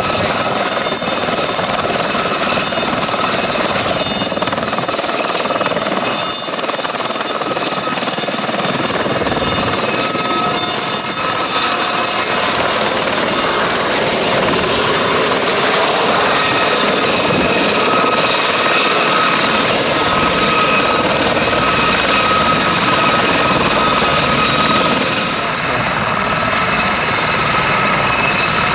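French Army Aérospatiale Gazelle helicopters hovering low, their Turbomeca Astazou turboshaft engines and rotors running steadily with a strong, high-pitched turbine whine over the broad rotor noise.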